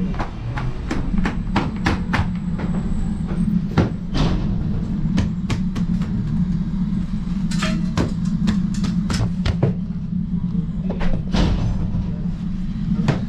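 Steady low mechanical hum of bakery machinery, with frequent irregular sharp knocks and clatter as bakers work the naan dough on their boards.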